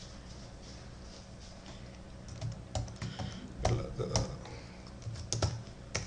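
Computer keyboard keystrokes: a scattered run of separate key clicks as a few letters are typed, starting about two seconds in after a quiet spell.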